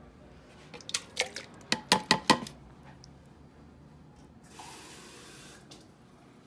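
A quick run of sharp knocks and clinks, about seven in a second and a half, as a small can of chipotle peppers in adobo is emptied into a glass blender jar. About a second of splashing pour follows.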